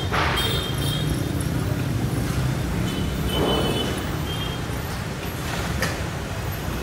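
Metal roofing sheets scraping and clanking as they are pulled and slid off a stack: a sudden clatter at the start, a longer scrape with a thin metallic ring about three and a half seconds in, and a sharp clank near the end, over a steady low rumble of traffic.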